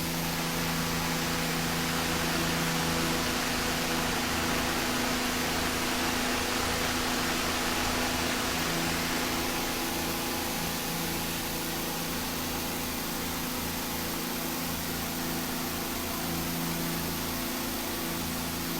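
1892 Crocker-Wheeler electric fan running at high speed, both motor coils energized, at about 1800 RPM: a steady rush of air over a steady motor hum.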